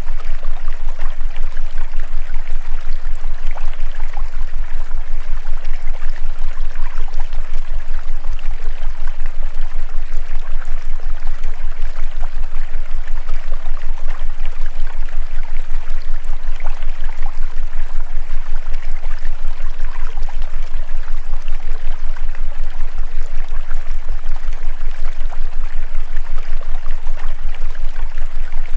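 Steady rushing water like a stream, used as the masking track of a subliminal recording, over a low hum that pulses quickly and evenly.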